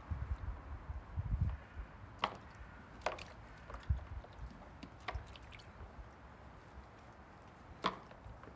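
A cat's paw slapping at the water in a plastic paddling pool: short splashes and drips about two seconds in, at three, at five and near the end. Low dull thumps come in the first second and a half and once near four seconds.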